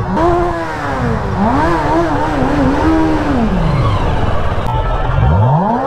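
Kawasaki Z900's inline-four engine on its stock exhaust being revved in slow traffic. The pitch climbs and wobbles with repeated throttle blips, drops back to idle, then climbs sharply again near the end.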